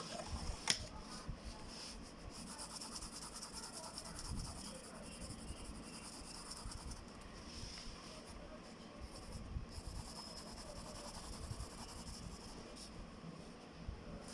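Pencil scratching on paper in quick strokes, with a single sharp click about a second in.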